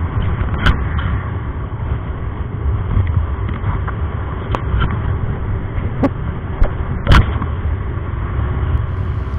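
Wind and road noise from a motor scooter under way, with a steady low rumble on the microphone and a few sharp knocks, the loudest about seven seconds in.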